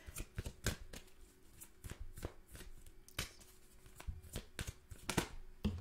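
Tarot cards being shuffled by hand: an irregular run of soft clicks and slaps of cards against each other.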